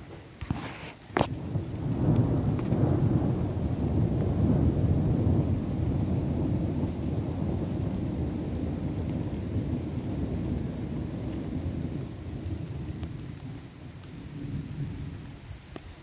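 A long rolling thunder rumble that builds about a second and a half in, stays loud for several seconds, then slowly dies away, with a smaller swell near the end. Rain falls steadily underneath, and there are a couple of sharp clicks at the very start.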